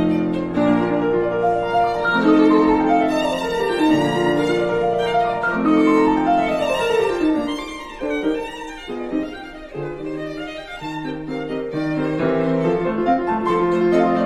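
Background music led by violin, with sustained notes and falling runs over a lower accompaniment.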